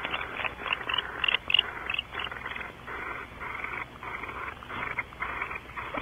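Barn owls in a nest box giving raspy hissing "snore" calls in a steady string of short bursts, around mating. A few brighter, higher chittering notes come about a second and a half in.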